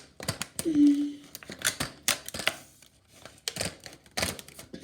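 Small plastic packaging being handled and opened by hand: irregular clicks, snaps and crinkles.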